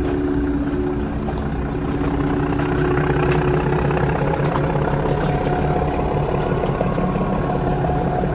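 Nilgiri Mountain Railway narrow-gauge train running, a steady low engine drone with a thin high whine slowly rising in pitch.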